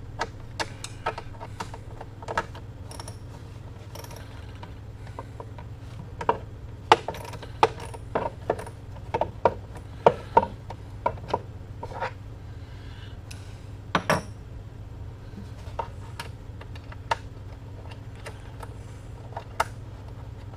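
Socket ratchet and small metal tools clicking and clinking in irregular, separate clicks while working at tight screws in a wooden radio cabinet base, over a steady low hum.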